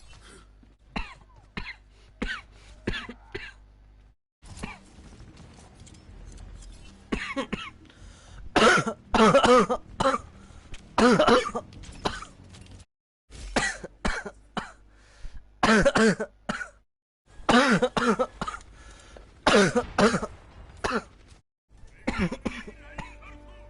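A person coughing hard, over and over: a few small coughs at first, then loud, harsh coughs every second or two from about seven seconds in.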